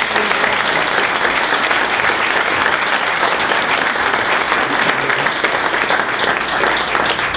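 Audience applauding, many hands clapping together in a steady, dense patter.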